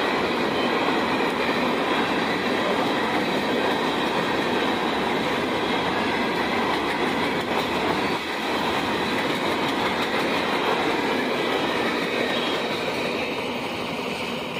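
Freight train of hopper cars rolling past, with a steady rumble and clatter of steel wheels on the rails. It fades near the end as the last cars go by.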